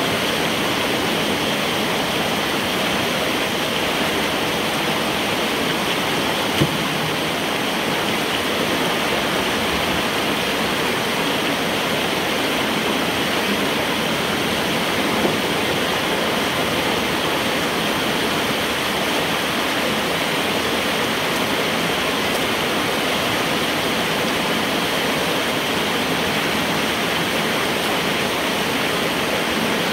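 Floodwater rushing through a corrugated metal culvert pipe, a steady loud rush of water churning around a person's legs, with two brief knocks about 7 and 15 seconds in.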